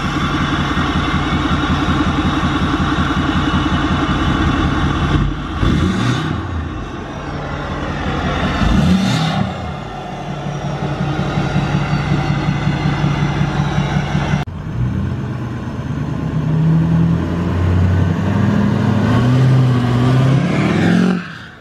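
Tuned, deleted and straight-piped 6.4 Powerstroke twin-turbo V8 diesel revving up and back down a few times. The engine then pulls up through the revs as the truck accelerates.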